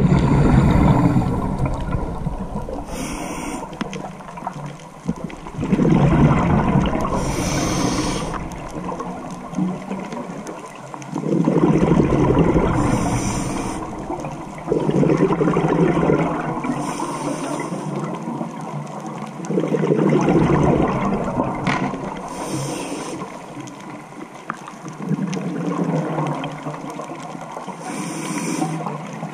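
Scuba diver breathing through a regulator, heard underwater: a short hissing inhale about every five seconds, each followed by a burst of exhaled bubbles rumbling past the camera.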